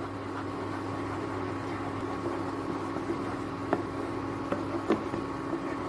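Wooden spatula stirring a thick ground onion, tomato and cashew paste in hot oil in a non-stick kadhai: soft sizzling with a few light clicks of the spatula against the pan, over a steady electrical hum.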